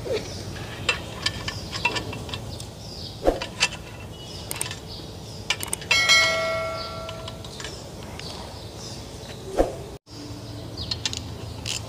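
Metal clinks and knocks from a heavy truck clutch pressure plate being handled and lined up on its intermediate plate. About six seconds in, a metal part is struck and rings like a bell for about a second and a half.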